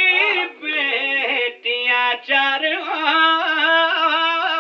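A man singing an Urdu qasida solo into a microphone: short melodic phrases, then one long held note from about halfway through.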